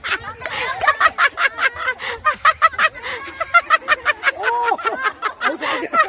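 A group clapping in a fast steady rhythm, about five claps a second, with voices cheering and whooping over it, loudest about four and a half seconds in.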